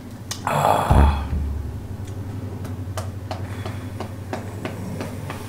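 A loud, noisy breath out after a swig of cola, with a thud about a second in as the plastic soda bottle is set down on the table, then a few faint clicks.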